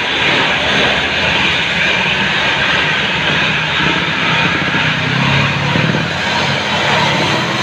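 Heavy road traffic passing close by: a steady rush of engine and tyre noise, with a deeper engine note growing louder about five seconds in.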